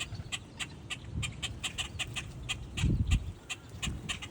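A flock of common gallinules (Florida moorhens) giving short, clucking calls, several a second. A low thump about three seconds in.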